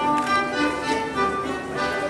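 Polish folk dance music, a fiddle and an accordion playing the tune.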